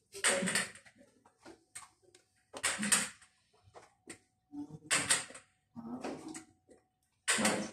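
Quad cane's metal feet and shoes knocking and scuffing on concrete stair steps during a slow descent, a handful of separate strikes about a second apart.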